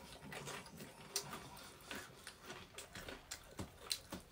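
Mouth sounds of eating: chewing with soft, irregular clicks and smacks, a few a second.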